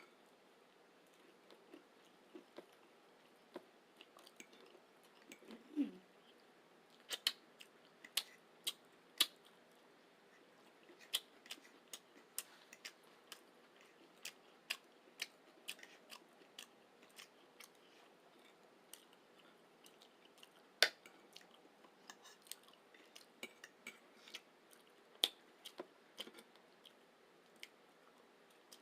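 Close-miked eating: irregular chewing and sharp wet mouth clicks, spaced unevenly, the loudest click about 21 seconds in. About six seconds in there is a short low sound that falls in pitch.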